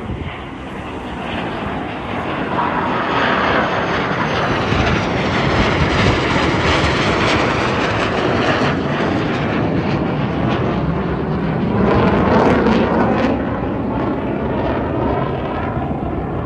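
Twin-engine F/A-18 Hornet jet flying over, a loud jet roar with a sweeping, hollow whoosh. The roar builds over the first couple of seconds, stays loud, swells again about twelve seconds in, and eases near the end as the jet moves away.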